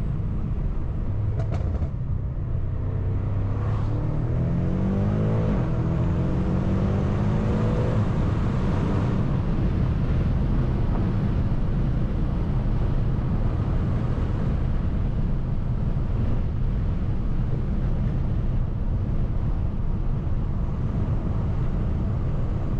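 BMW F90 M5's twin-turbo V8 heard from inside the cabin while driving: the engine note climbs in pitch for a few seconds as the car accelerates, then settles into a steady drone of engine and road noise.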